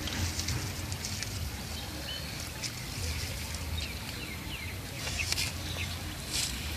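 Outdoor riverside ambience: a steady low rumble under scattered small clicks and a few short, high bird chirps.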